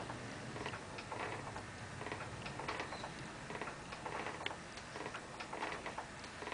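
Motorized baby cradle swing ticking repeatedly as its seat swings back and forth.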